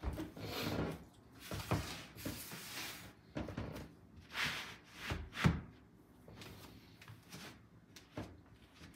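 Bare feet stepping and shuffling on a wooden floor, mixed with rubbing and brushing sounds from movement close to the microphone. A sharper thump comes about five and a half seconds in.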